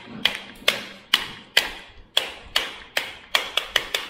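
Plastic chain-cleaning brush being tapped repeatedly against a hard surface to knock grime off its bristles: a run of sharp taps, about two a second, coming quicker near the end.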